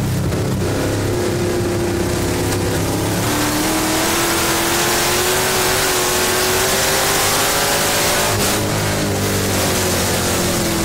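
Dirt-track race car's engine under power, heard from inside the cockpit, its pitch climbing slowly for most of the time and then falling away near the end as the throttle eases, over constant wind and track noise.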